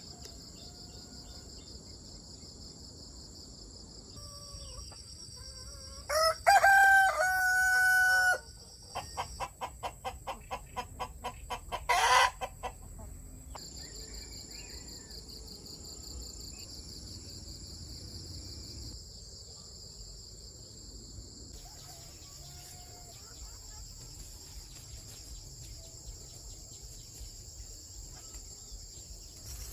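A rooster crows once, a loud call of about two seconds, followed by a quick regular run of shorter calls, over steady high-pitched insect trilling.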